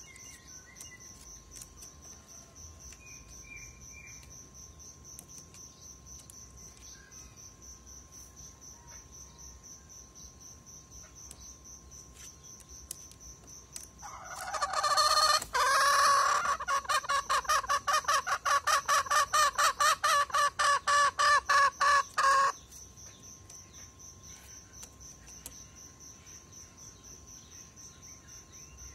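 Caged male junglefowl rooster crowing: one loud call starting about halfway through, rapidly pulsing for about eight seconds, then stopping abruptly. A faint steady insect trill continues underneath.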